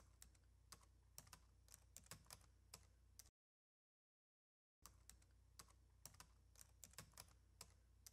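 Faint typing on a computer keyboard: irregular key clicks over a low steady hum, cut off to dead silence for about a second and a half midway before the typing resumes.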